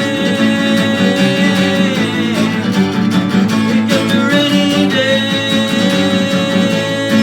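Instrumental passage of a song, with no singing: band music with long held melody notes over a steady accompaniment.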